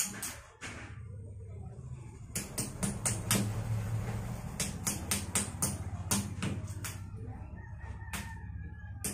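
Hand tools chipping at a concrete floor: quick runs of sharp metal strikes, about five a second, with pauses between, over a steady low hum.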